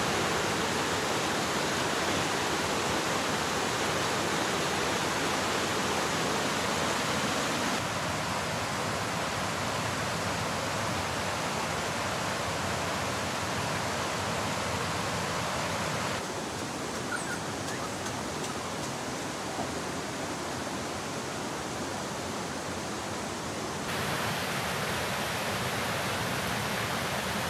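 Steady rush of water from a rocky mountain stream flowing over boulders, changing slightly in tone three times.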